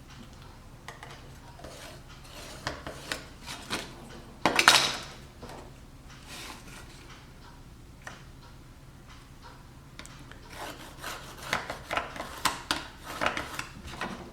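Handling noise on a plastic blast gate: rubbing and scraping with scattered light clicks and taps as the centre is measured and marked, with a louder scrape about four and a half seconds in and a quick run of taps and clicks near the end.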